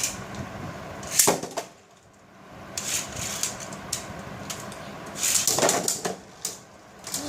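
Plastic Beyblade spinning tops whirring and clacking against each other and the plastic stadium, with a sharp clack about a second in and a louder burst of clattering about five seconds in.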